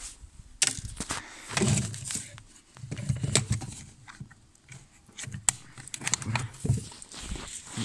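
Handling noises from a rabbit hutch: a metal bowl clip being worked and a bowl knocking against the hutch floor, with scattered clicks, muffled thuds and rustling straw.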